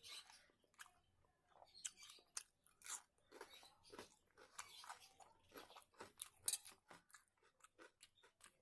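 Faint close-miked eating sounds: a person chewing and crunching food, a quick irregular run of small wet mouth clicks with one sharper crunch about six and a half seconds in.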